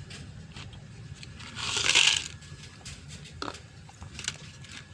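Cats eating, with small crunching clicks, and a short loud hissing noise about two seconds in.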